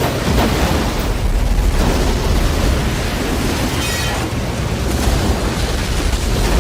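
Film sound effects of a semi truck crashing and exploding: a loud, continuous rumbling blast with heavy bass.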